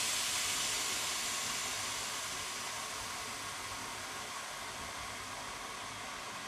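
Steam hissing steadily from the standing Ol49-69 steam locomotive, slowly fading.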